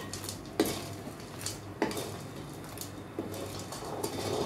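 Metal spoon stirring milk kheer in a metal kadhai, knocking and clinking against the pan about three times. A steady low hum runs underneath.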